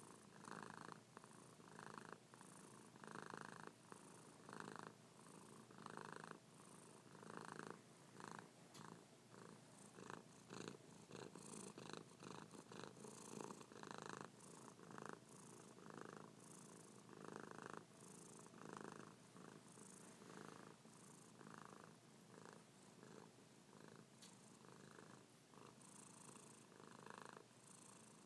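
Grey domestic cat purring softly right at the microphone. The purr swells and fades with each breath, about once a second.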